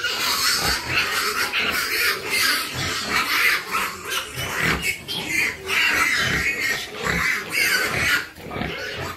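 Pigs squealing, short cries following one another with hardly a pause.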